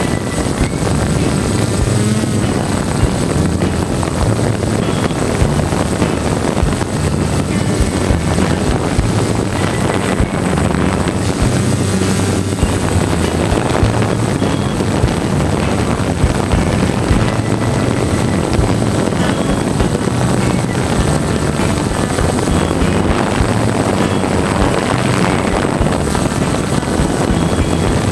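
DJI F550 hexacopter's six electric motors and propellers buzzing, heard from the camera on board, the pitch stepping up and down as the throttle changes. Wind rushes over the microphone, and a thin steady high whine runs underneath.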